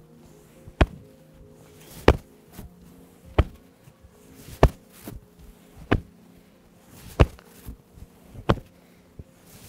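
Hands slapping the body in an even rhythm, one sharp slap about every 1.3 seconds, some followed by a softer second slap: palms flapping the dazhui point at the back of the neck and the back below the shoulder blade with each twist of the waist. Faint background music plays under it.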